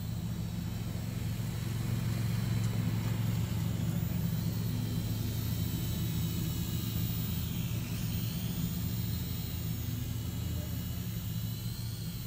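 Small quadcopter drone flying, its motors and propellers whining, the pitch dipping and rising again a little past halfway as it manoeuvres, over a steady low hum.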